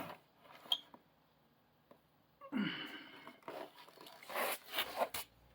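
Cardboard box and packaging being handled and rustled, with scattered light clicks and knocks. About two and a half seconds in there is a brief voiced exhale with a falling pitch.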